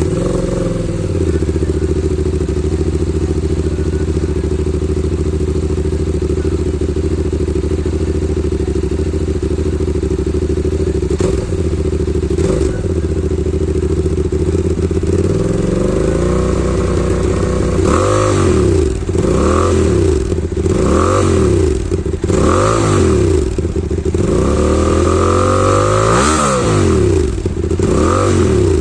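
QJmotor SRT600SX motorcycle's 270-degree-crank engine idling steadily with an even, lumpy note. From about halfway through, the throttle is blipped about eight times in quick succession, the revs rising and falling each time.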